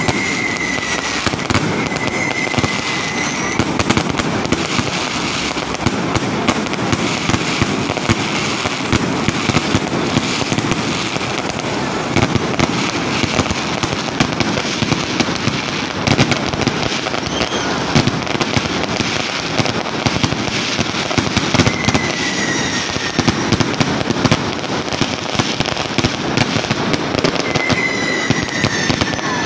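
Aerial fireworks going off close overhead in a steady, dense barrage of crackles and pops. A few short falling whistles cut through it near the start, about two-thirds of the way in, and near the end.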